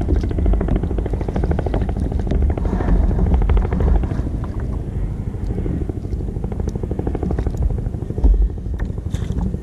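Fishing reel being cranked fast, its gears whirring as a rapid, even run of ticks, over a low rumble of wind on the microphone.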